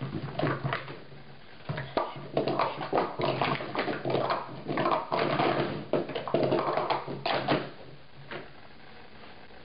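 Plastic sport-stacking cups clattering fast as they are stacked up and brought down on a stacking mat: a quick run of clacks and taps for about seven and a half seconds, then a single clack near the end.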